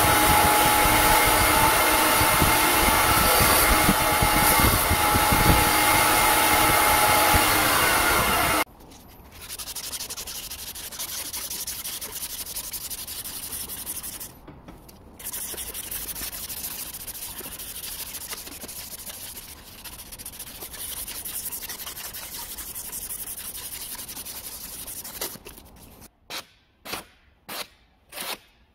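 Belt grinder running as a wooden knife handle is ground against the belt; the machine stops suddenly about 8.5 seconds in. Then a strip of abrasive is pulled back and forth around the wooden handle by hand, shoe-shine style, a quieter steady rubbing with one short pause. Near the end come a few short separate sounds about twice a second.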